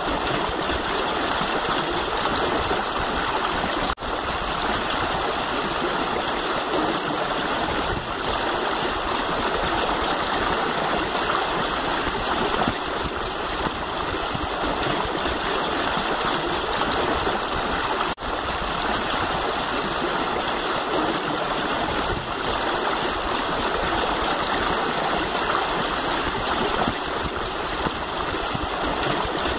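Steady rushing noise like a running stream, even throughout, breaking off for an instant twice.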